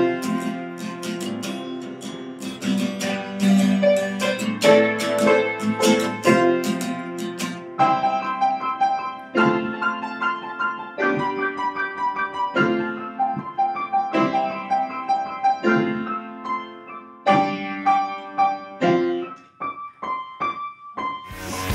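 Upright piano and acoustic guitar playing an instrumental tune together, the piano loudest. From about eight seconds in the piano plays quick repeated notes, which thin out to a few single notes near the end before the music cuts suddenly to a louder, noisier passage.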